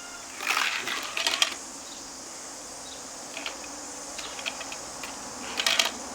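Short splashing and handling noises as a toy raft is set into pool water: two bursts in the first second and a half and one more near the end, over a steady high insect drone.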